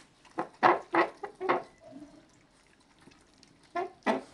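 Dogs eating from their bowls: wet licking and lapping in short bursts, a quick cluster at first and two more near the end.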